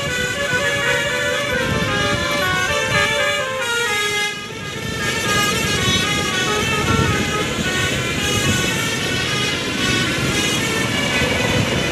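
Basuri telolet multi-tone air horn on a bus playing a quick stepping melody, the notes changing several times a second, over a low rumble, with a brief break about four seconds in.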